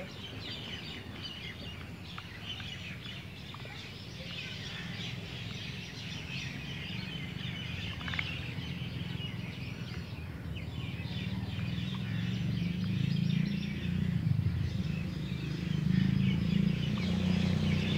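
Birds chirping in trees, many short calls overlapping throughout, over a low rumble that grows steadily louder over the second half.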